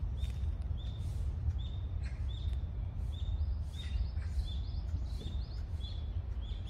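A bird repeating a short high chirp about twice a second, over a steady low rumble.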